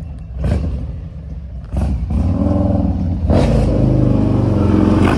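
Harley-Davidson V-twin touring motorcycle with an aftermarket exhaust, its engine rumbling in loud about two seconds in. It is revved once, then runs steadily.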